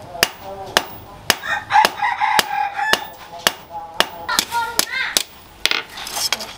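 Hand hammer striking a red-hot leaf-spring blade on a steel post anvil, a steady blow about every half second. A rooster crows about two seconds in, the loudest sound, and calls again around five seconds.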